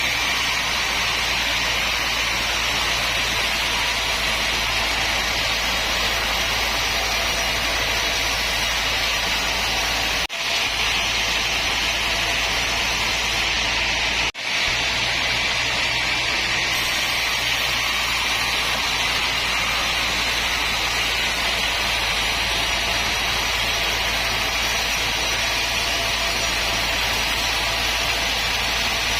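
Sawmill machinery running with a steady, unbroken din. The sound cuts out for an instant twice, about ten and fourteen seconds in.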